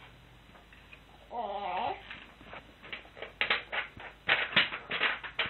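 A baby gives a short wavering vocal squeal, then, about three seconds in, starts clapping her hands: a quick run of sharp claps, several a second.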